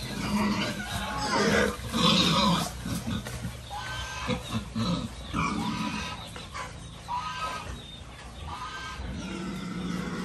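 A pen of young pigs squealing and grunting as they crowd and jostle together, with repeated short high-pitched squeals over rough grunting, loudest about two seconds in.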